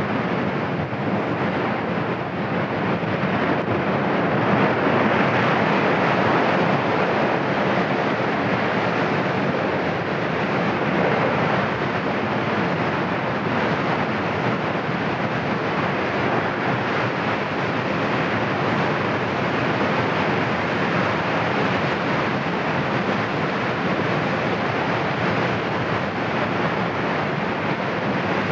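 Cumbre Vieja volcano erupting: a continuous rushing rumble from the vent as it blasts out its ash column, swelling slightly a few seconds in and otherwise steady.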